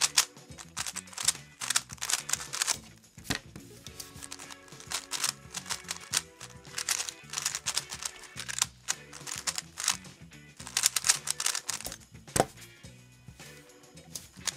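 Rapid clicking of a Valk 3 Power M magnetic 3x3 speedcube's layers being turned in quick bursts during a speedsolve, over background music. Near the end comes a single sharp knock as the cube is set down on the desk.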